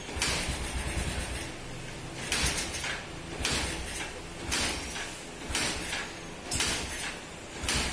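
Yamaha Enticer motorcycle being kick-started over and over, about one kick a second: each stroke of the kick lever spins the single-cylinder engine over with a short clattering whoosh, but it does not catch. The engine is being cranked on a newly fitted Honda CG125 carburetor.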